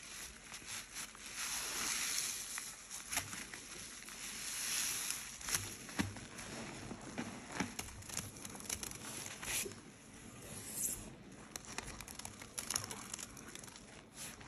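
Sponges squeezed and kneaded by gloved hands in thick, foamy white cleaning paste: wet squelching and crackling foam, with two longer swells of hiss in the first half and many sharp clicks throughout.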